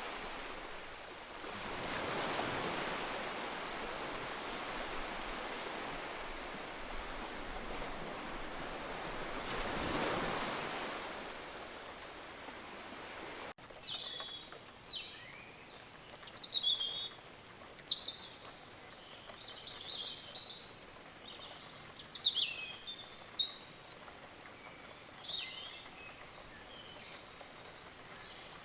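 Sea surf washing in, swelling twice. About halfway through it cuts off abruptly to a different recording of several birds singing and chirping.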